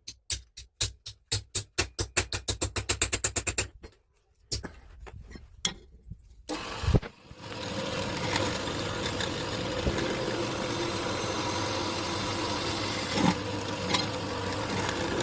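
An engine cranking in a fast, even series of pulses for about four seconds, then after a few clicks and a thump it runs steadily.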